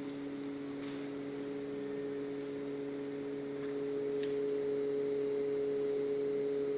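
Synthetic vowel from a vocal tract synthesizer, a steady held tone on one low pitch, growing a little louder about three and a half seconds in.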